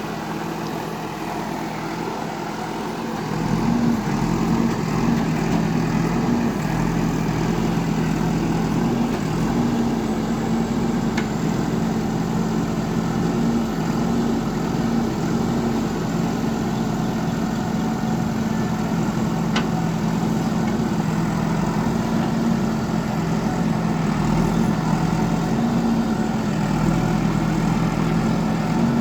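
Diesel engine of a JCB earthmover running steadily, getting louder about three and a half seconds in and holding there.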